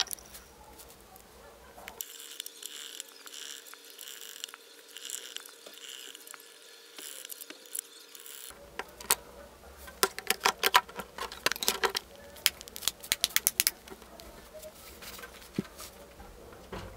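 Small clicks, taps and scratches of a Fairphone 4 being reassembled by hand, its parts and screws worked with a small screwdriver. The sharp clicks come thick and fast in the second half.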